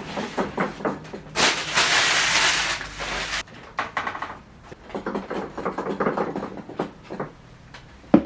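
Knocks and clatter of objects being picked up, moved and set down while clearing out a shed. About a second and a half in, a rush of noise lasts about two seconds.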